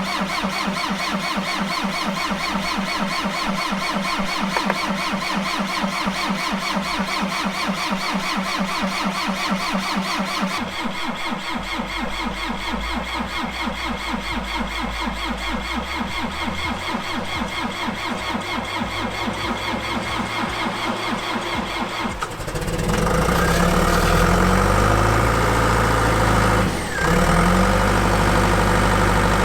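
John Deere 450H bulldozer's diesel engine cranking over on the starter in a hard cold start after starting fluid. About 22 seconds in it catches and runs, louder, stumbling briefly once soon after.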